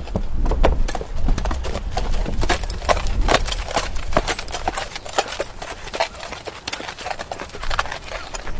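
Horse walking, its hooves striking the ground in a continuous, uneven run of clip-clop steps, several per second, over a low steady rumble.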